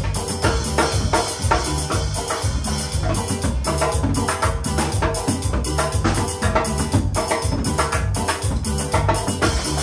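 Cumbia music with a steady, brisk beat on drums and hand percussion over a strong bass line.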